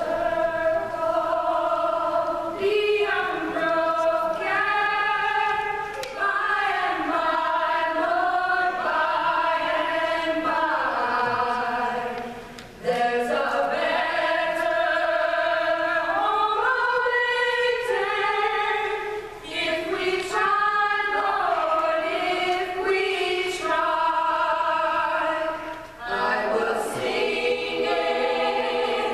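A large multigenerational choir singing in long phrases, with brief breaks between phrases about 12, 19 and 26 seconds in.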